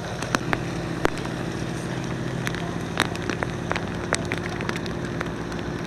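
Rain pattering steadily, with scattered sharp ticks of drops at irregular moments, over a faint low steady hum.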